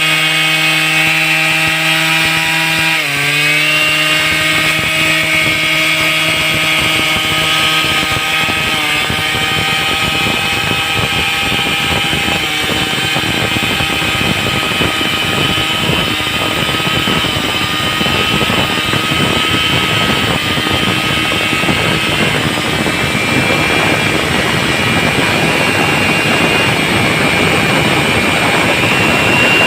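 Stihl chainsaw engine running hard at high revs. Its pitch drops sharply about three seconds in and then holds steady, and a rough, noisy edge grows over the second half.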